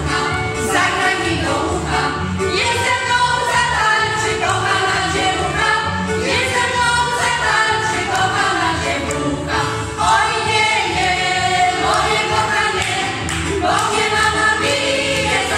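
A Polish folk vocal ensemble of women, a man and young girls singing a song together in chorus.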